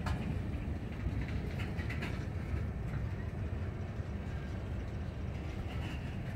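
Freight cars (a tank car and a covered hopper) rolling past on the adjacent track: a steady low rumble of steel wheels on rail, with a few brief faint squeaks.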